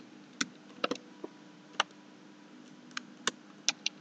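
Computer keyboard keys tapped one at a time at an irregular pace, about nine sharp clicks, while a password is typed. A faint steady hum lies under them.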